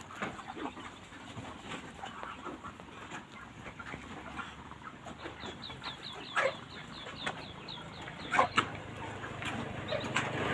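Broiler chickens clucking and peeping, with many short scattered calls and a quick run of high chirps in the second half. Two louder calls stand out, about six and eight seconds in.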